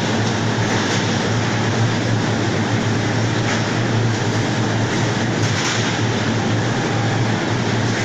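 Steady running noise of a whole-chicken weight grader's conveyor belts and the surrounding processing-line machinery, with a strong low hum and a few faint clicks.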